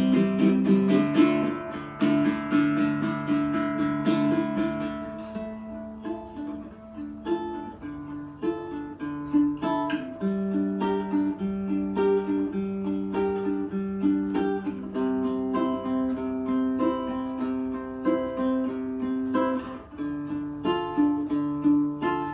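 Background music played on a plucked string instrument, a melody of held notes over changing chords.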